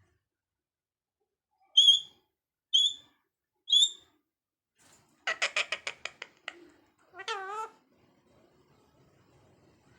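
Pet parrot calling: three short, high whistled chirps about a second apart, then a quick run of clicking notes, then a short warbling call.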